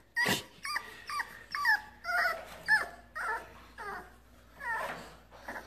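Bulldog puppy whining in a string of short, high calls that bend up and down in pitch, about two a second.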